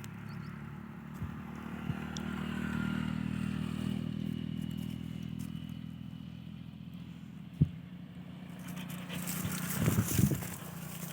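A steady low motor hum, swelling a little a couple of seconds in, with a single sharp knock about seven and a half seconds in and crackling, rustling noise near the end.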